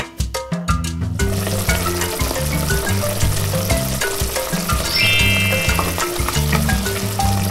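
Sizzling frying-food sound, a steady hiss that starts about a second in, over cheerful background music with a stepping bass line.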